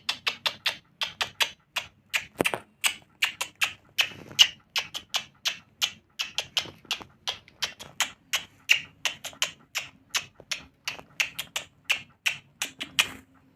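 A pet lory parrot making a rapid, uneven series of short sharp clicks and chips, about four a second.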